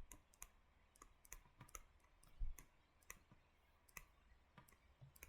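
Faint, irregular clicks, about three a second, from a stylus tapping on a tablet screen while a note is handwritten. A slightly heavier tap with a soft thud comes about two and a half seconds in.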